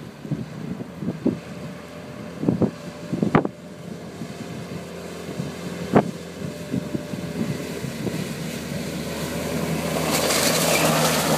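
Toyota Hilux engine running as the truck drives through shallow river water toward the microphone, the hum building steadily. From about nine seconds in, water splashing and rushing off the wheels grows loud as it reaches the near bank. Wind gusts buffet the microphone during the first four seconds.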